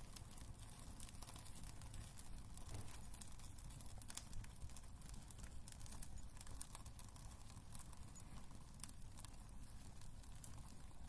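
Wood fire crackling in a fireplace: irregular small pops and snaps over a low, steady rumble.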